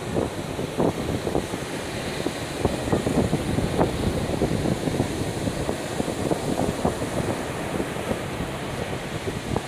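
Wind buffeting the microphone in irregular gusts over the steady wash of ocean surf.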